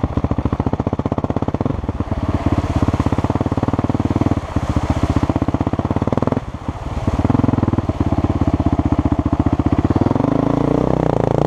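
Honda CRF450X single-cylinder four-stroke dirt bike engine running on the throttle, with a brief lift off the throttle about six seconds in. Near the end it labours and its pitch falls as the bike ploughs into deep water, with water splashing.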